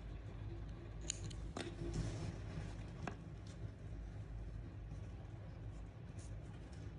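Thread snips cutting the yarn with a sharp click about a second in, followed by a few light clicks of handling the crochet hook and yarn, over a steady low hum.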